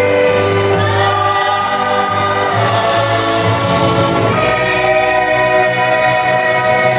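A vocal group singing in split-part harmony (pecah suara), several voices on sustained chords. The chord changes a couple of times, and from about four seconds in it is held as a long final-sounding chord.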